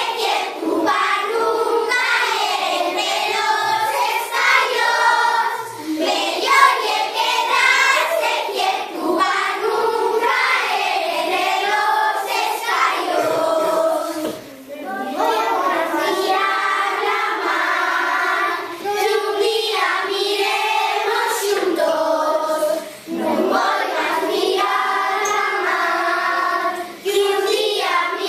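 A class of young schoolchildren singing an Asturian folk song together as a group, with brief pauses between phrases.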